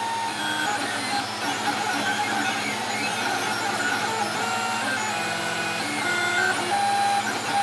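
Snapmaker 2.0 3D printer laying down its first layer: its stepper motors whine in short tones that change pitch as the print head shifts direction, over a steady low hum.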